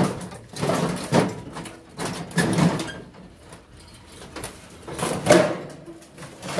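Sheet-metal casing of an air-conditioner condenser unit scraping and knocking on concrete as it is tipped up and turned over, in several separate bursts.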